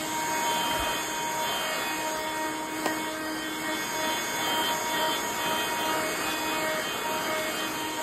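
Hihhy cordless handheld vacuum cleaner running steadily, a constant whine over rushing air, as its nozzle sucks up kitty litter from a bed sheet. A single small click about three seconds in.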